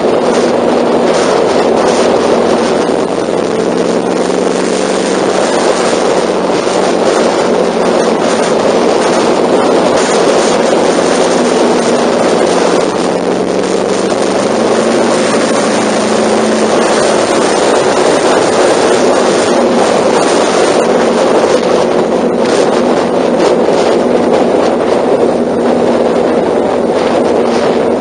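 Honda NC700's parallel-twin engine running steadily at expressway cruising speed, heard from the motorcycle itself, with heavy wind rushing over the microphone.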